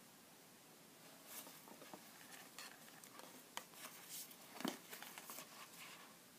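Faint handling noise from a new canvas Converse Chuck Taylor All Star II low-top sneaker being turned in its cardboard shoebox: soft rustles of tissue paper and the hang tag, with scattered light clicks and taps. One sharper tap comes about three-quarters of the way through.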